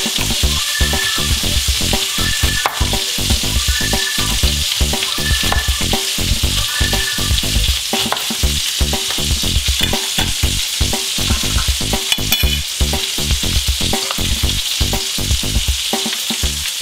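Bacon and ground-beef patties sizzling in a ridged grill pan, a steady frying hiss, with a quick, uneven run of low thuds underneath.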